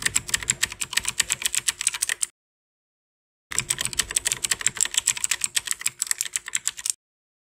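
Typing sound effect: a rapid run of key clicks in two bursts, with a pause of about a second between them, cutting off abruptly near the end.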